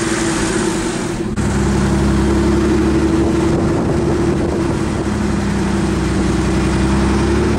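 Car engine running steadily with road and wind noise, heard from inside a moving car; a deeper low hum comes in about a second and a half in.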